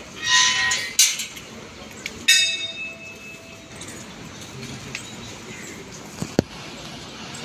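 Temple bell struck twice, the second strike about two seconds in, louder, with tones that ring on for over a second; a few sharp clicks besides.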